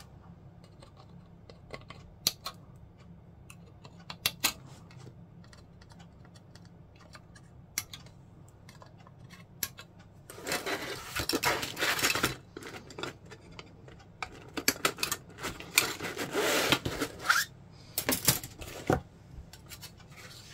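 Sprue cutters snipping plastic kit parts off the sprue: a scattering of sharp single clicks. About halfway through, longer stretches of plastic rustling and rubbing as the sprue and parts are handled, with a few more snips near the end.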